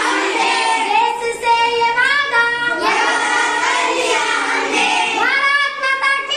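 A girl singing a Hindi song on Swachh Bharat, the clean-India campaign, in phrases that bend and hold.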